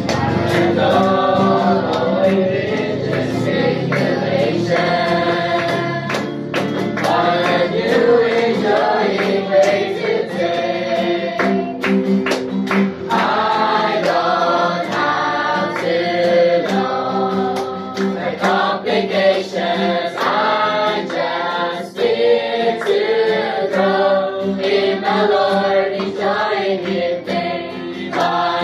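Mixed group of young men and women singing a worship song together in unison, accompanied by a strummed acoustic guitar, with sharp hand claps along the beat.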